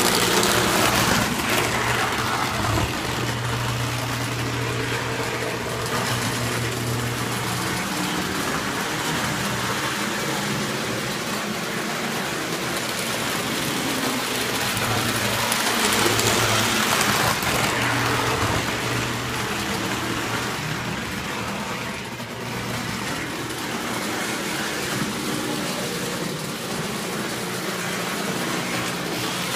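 O-gauge tinplate model trains running on three-rail track: metal wheels rumbling and clattering over the rails above a steady electric hum. The noise swells as a train runs close, about a second in and again around sixteen to eighteen seconds.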